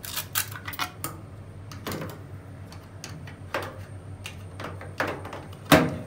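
Plastic clicks and knocks as the emergency drain hose of a Bosch front-loading washing machine is tucked back into its holder and the round plastic drain pump access cover is fitted, about six separate clicks, the loudest a sharp click near the end as the cover is pressed shut.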